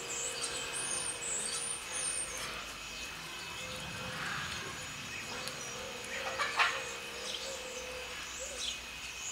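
Small birds chirping repeatedly in short high calls over a faint steady hum, with one short sharp knock about six and a half seconds in.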